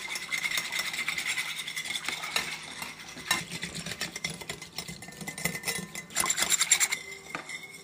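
Eggnog being whisked in a bowl: a fast, continuous scraping and clattering of the whisk against the bowl, louder for a moment near the end.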